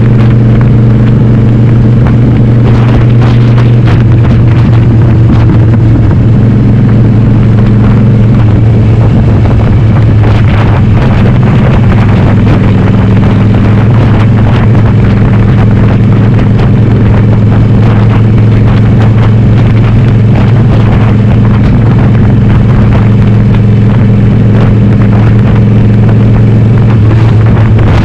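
Harley-Davidson Sportster 883R's air-cooled V-twin, bored up to 1200, running loudly at a steady road speed through a Cobra Speedster 909 exhaust with the dB killers removed; the engine note shifts slightly a few seconds in, then holds steady.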